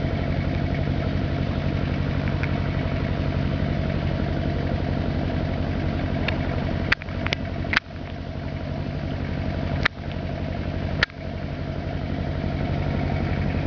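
An engine running steadily at idle, with a fast even throb, interrupted by several sharp knocks in the middle of the stretch.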